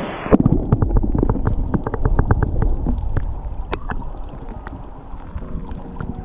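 River water heard from under the surface, muffled, with a dull rumble and gurgle. Many sharp small clicks and ticks come through the first few seconds and then thin out.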